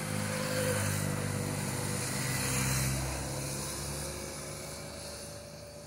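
A motorcycle passing on the road, its engine growing louder to a peak about three seconds in and then fading away.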